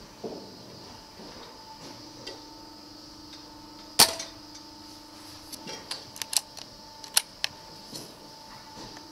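A single air rifle shot about four seconds in, followed a moment later by a scatter of sharp clicks and knocks, over a faint steady hum.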